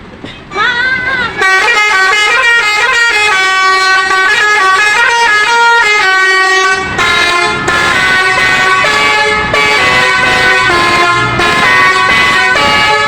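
Basuri telolet horn, a multi-tone bus air horn, playing a melody. It opens with a couple of bending, rising toots, then runs through quick stepped notes, and from about halfway several horn tones sound together.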